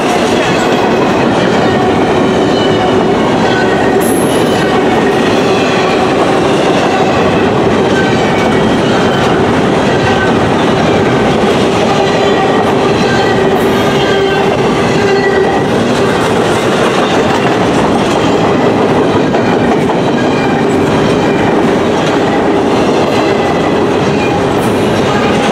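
Freight train cars rolling past, loud and steady: the rumble and clatter of steel wheels on rail, with short high wheel squeals coming and going.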